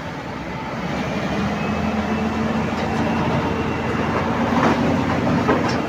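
Heavy truck's diesel engine running under load while reversing a multi-axle low-bed trailer, with the trailer's wheels and frame rattling past. It grows louder over the first couple of seconds, with a couple of sharp metallic clanks near the end.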